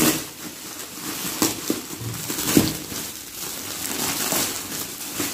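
Shiny metallic plastic gift wrap crinkling and rustling as it is pulled and torn open by hand, with sharp crackles at irregular moments.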